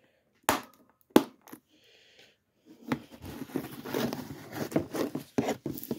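Plastic disc case and its cardboard slipcover being handled: two sharp clicks, then from about three seconds in a run of rustling and scraping with a few knocks.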